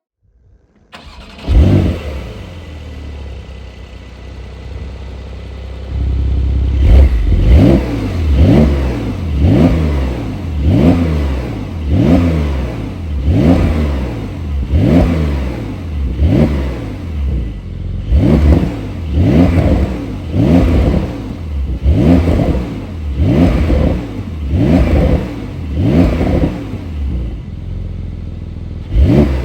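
Porsche 992 Carrera S's twin-turbo flat-six starting about a second and a half in, with a brief flare, then idling. From about six seconds in it is revved again and again, blipping up and falling back roughly once a second.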